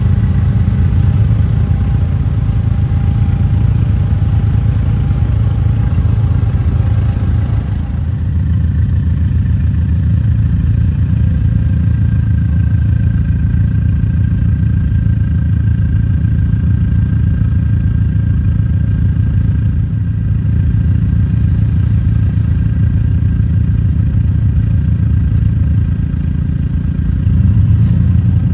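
Off-road truck engine running at low speed while crawling along a rocky trail, a steady low drone.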